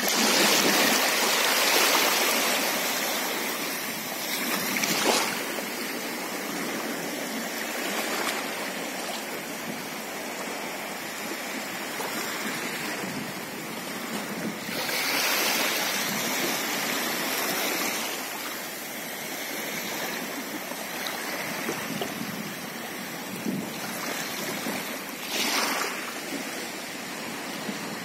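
Small waves lapping and washing in shallow water, coming and going in swells: loudest at the start, again about halfway through, and in a short surge near the end.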